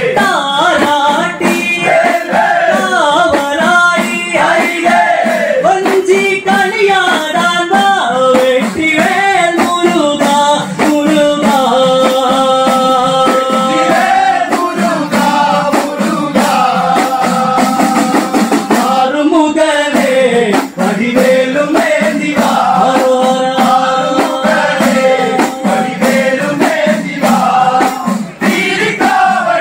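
A group of men singing a Kerala chinthu pattu, a devotional song to Murugan, in chorus, with small udukku hourglass drums beating a steady, fast rhythm under the voices.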